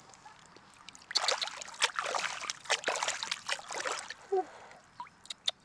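Water splashing and sloshing as a large clam shell is rubbed and rinsed by hand in shallow stream water, starting about a second in and lasting about three seconds. Two sharp clicks follow near the end.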